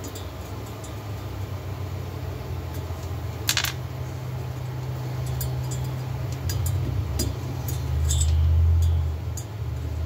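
Light metal clinks of washers and bolts being fitted to a cylinder clamped in a lathe chuck, the sharpest about three and a half seconds in. Under them runs a steady low machine hum that grows louder near the end.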